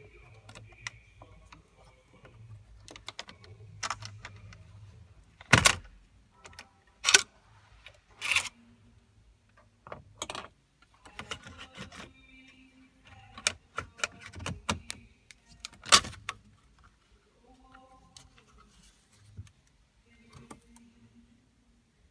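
Sharp plastic clicks, knocks and rattles of a Porsche Cayenne's centre-dash air vent being worked loose with a pair of hooked vent-removal tools. The clicks come irregularly, with the loudest near six, seven, eight and sixteen seconds in.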